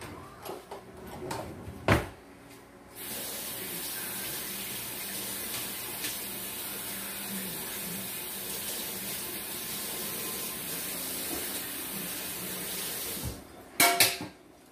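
Kitchen tap running steadily for about ten seconds, switched on and off abruptly. A sharp knock comes before it and a brief clatter right after it.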